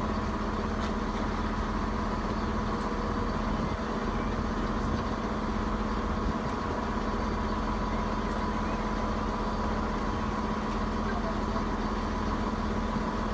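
Diesel engine of a standing train idling, a steady hum that holds the same pitch throughout.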